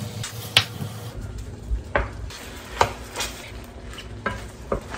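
Cubes of steak sizzling as they are sautéed in melted butter in a stainless steel skillet, with a spatula clicking and scraping against the pan about six times as the meat is stirred.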